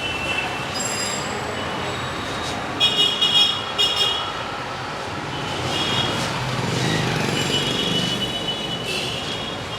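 Busy street traffic with vehicle horns beeping repeatedly: two quick beeps about three seconds in, then several more, longer ones from about six seconds on.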